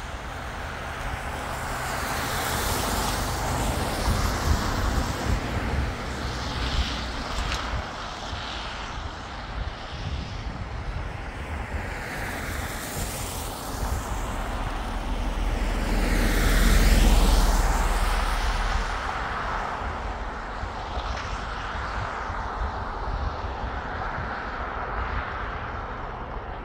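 Vehicles passing one after another with a rushing sound, each swelling and fading; the loudest pass, about two-thirds of the way in, carries a deep rumble.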